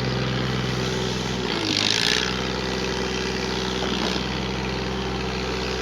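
Diesel engine of a Putzmeister 715 TD concrete pump running steadily under pumping load; about two seconds in its note dips briefly together with a hiss.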